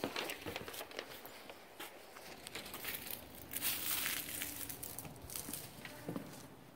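Footsteps and rustling handling noise from a handheld camera while walking, with scattered light clicks and a brief louder rushing noise a little past halfway.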